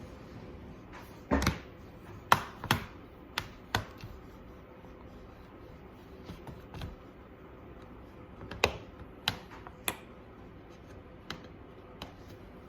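Irregular sharp clicks and taps of hard plastic being handled on an HP 250 G9 laptop, about ten in all, with a quiet stretch in the middle.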